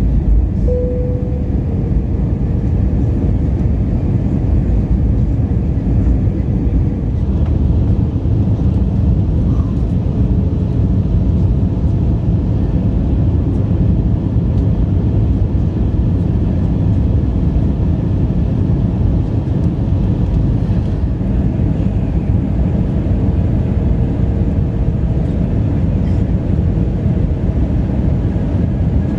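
Steady cabin noise of an Airbus A320 on its descent to land, heard from inside the cabin: the deep, even rumble of the engines and the airflow over the fuselage, with a faint thin whine.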